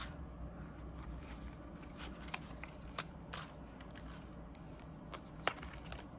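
Faint rustling of paper banknotes and crinkling of a clear vinyl binder pocket as cash is handled and tucked into a budget-binder envelope, with scattered soft clicks.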